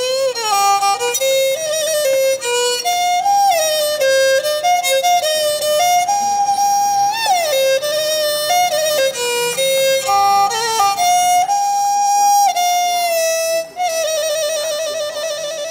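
Background music: a solo bowed-string melody moving in steps and slides, with a wavering vibrato on a held note near the end.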